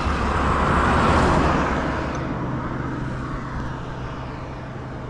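Oncoming cars passing close by: a rush of tyre and engine noise that peaks about a second in and then fades away, over a steady low engine hum from the vehicle being ridden.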